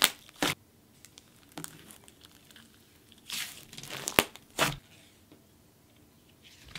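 Thick butter slime squeezed and kneaded by hand, giving a series of separate short, sticky crackling squishes, then a quiet spell from about five seconds in.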